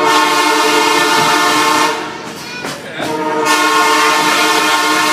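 Train horn sounding two long blasts, each about two seconds, with a short break between them.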